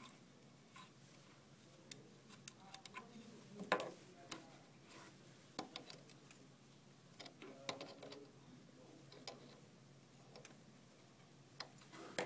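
Faint, scattered clicks and taps of needle-nose pliers and a small nut being worked on a kiln controller's circuit board and metal mounting plate. Louder clacks come about four seconds in, around eight seconds and near the end.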